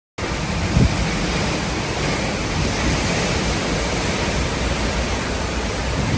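Hurricane wind blowing hard and steadily, buffeting the microphone with a low rumble. It cuts in abruptly just after the start.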